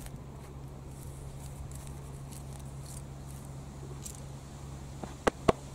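Light rustling of dry twigs being picked up from grass over a steady low hum, then two sharp cracks close together near the end, as of dry sticks being snapped for kindling.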